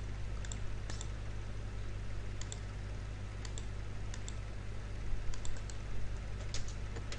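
Irregular clicks of a computer mouse and keyboard, over a steady low electrical hum. The clicks come as lines are picked with the AutoCAD Trim command.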